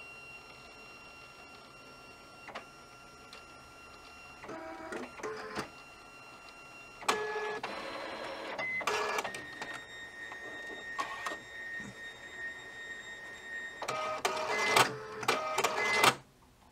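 HID Fargo DTC4250e ID card printer running its cleaning cycle, its motors and rollers feeding the sticky cleaning card through. A steady motor whine gives way to bursts of whirring at shifting pitches with many clicks, loudest near the end, then it stops suddenly.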